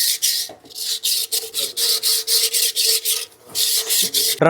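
Sandpaper scrubbed inside a Royal Enfield Bullet Battalion's rear brake drum in rapid back-and-forth strokes, about five a second, pausing briefly twice. The drum is being cleaned of rust and dust that cause the brake noise.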